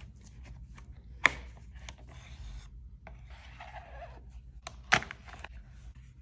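Paper packaging of an Apple FineWoven iPhone case being handled and opened: rubbing and tearing of paper, small clicks, and two sharp snaps, one about a second in and one near the end.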